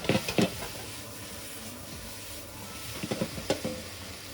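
Cut boiled potatoes and onion sizzling in oil in a large frying pan, with a steady hiss. A few sharp knocks of a utensil against the pan come near the start and again about three seconds in.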